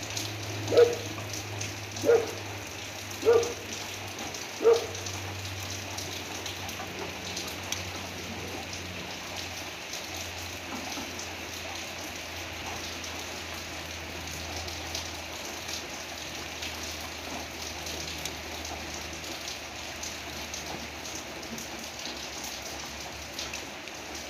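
Steady rain falling on the leaves of a fig tree and garden hedges. A dog barks four times, a little over a second apart, in the first five seconds.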